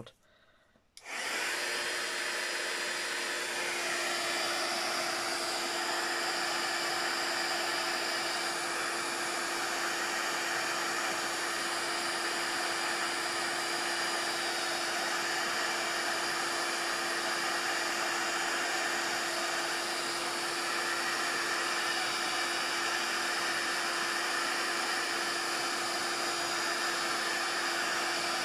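Handheld embossing heat gun switched on about a second in and running steadily, a rush of blown air over a steady motor hum, as it melts embossing powder.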